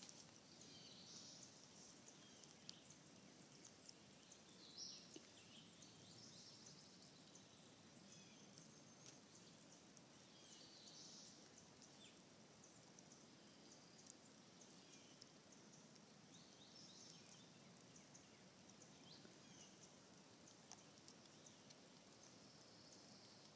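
Near silence: faint woodland bird chirps and calls scattered throughout, with a few small clicks.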